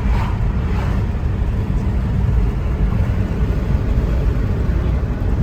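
Steady low road and engine rumble heard inside a moving car.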